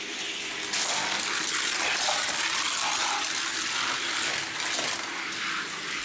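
Two Hot Wheels die-cast cars, a Ford Thunderbird Stocker and a Chevy Monte Carlo, rolling at speed down a gravity race track. Their wheels make a steady rushing rumble on the track that builds over the first second and then holds.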